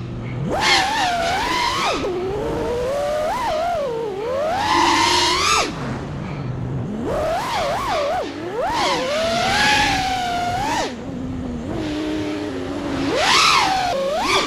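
Brushless motors of an FPV freestyle quadcopter whining, the pitch sweeping up and down several times as the throttle is punched and chopped through the flight.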